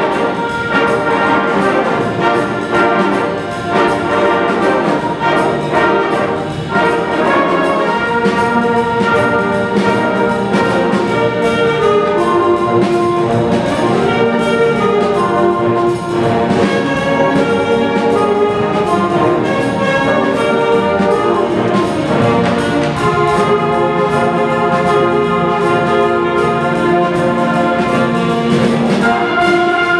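Symphonic concert band of brass, woodwinds and percussion playing a swing-style medley, with trumpets and trombones prominent over a steady beat.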